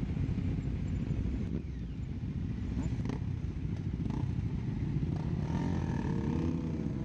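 Motorcycle engines idling in a low, steady rumble while the group waits at a traffic light, then revving up with a rising pitch near the end as the bikes pull away on the green.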